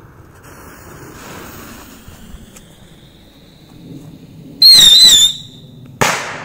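Small stick rockets (mini firework rockets): a hiss of burning fuses, then a loud warbling whistle for about half a second as they launch, and a single sharp bang about a second later as the rockets burst together.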